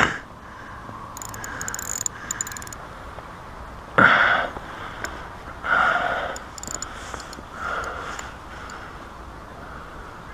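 Fishing reel wound in quick runs of fine clicking while a hooked fish pulls on the bent rod. There is a sharp knock right at the start, and short loud rushes of noise come about every two seconds.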